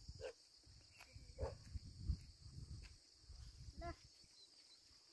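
Faint outdoor field ambience: a steady high insect drone, wind rumbling on the microphone now and then, and a few brief faint calls, one near the end with a clear ringing pitch.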